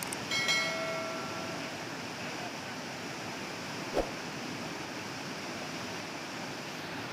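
Steady rush of river water. Just after the start there is a brief metallic ringing of a few clear tones lasting about a second, and a single sharp click comes about four seconds in.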